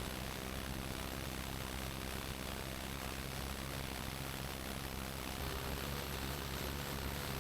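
Needle scaler running steadily with a buzzing chatter, its needles hammering rusty spots on steel to chip away loose rust before priming.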